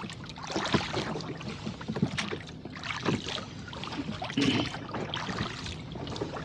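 Choppy lake water splashing and slapping against a rowing boat's hull as it is rowed, in uneven bursts about once a second.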